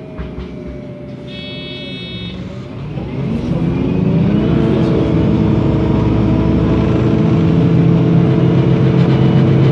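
MAN NL 273 T3 LPG city bus engine pulling away: a short electronic beep about a second in, then the engine revs up about three seconds in and runs on steadily under load, much louder than before.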